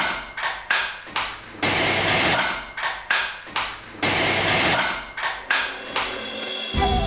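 Title-sequence sound effects: a run of about a dozen sharp, noisy hits, each fading within half a second. Music with a low bass comes in near the end.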